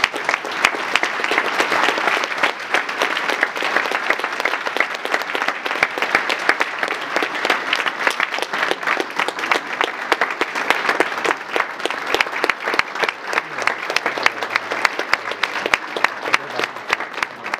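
Audience applauding: many hands clapping in a dense, sustained patter.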